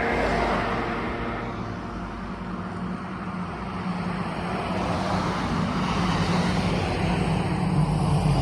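A motor vehicle approaching on the road, its engine and tyre noise growing steadily louder toward the end. The last hum of the church bells dies away in the first second or so.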